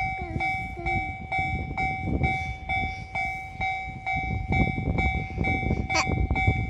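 Japanese railway level-crossing warning bell ringing its two-tone electronic clang, about two strikes a second, over a heavy low rumble.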